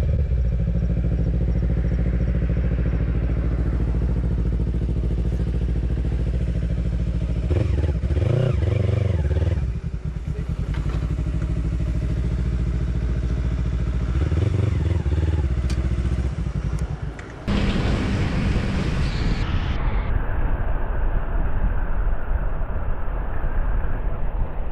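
Kawasaki Ninja 300 parallel-twin engine idling steadily, its note swelling up and back down twice. After a cut about two-thirds of the way through, the bike is riding at road speed, engine running under wind noise.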